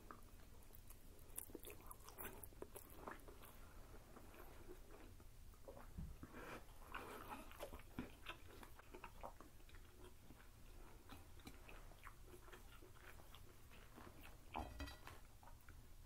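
Faint chewing and mouth sounds of people eating noodles and pismaniye floss candy: soft, irregular smacks, slurps and small clicks.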